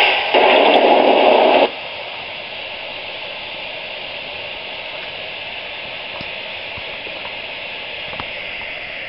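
Sound decoder of an LGB garden-railway steam locomotive playing through its small speaker: a loud burst of steam noise for about the first second and a half, then a steady hiss of escaping steam from the standing engine.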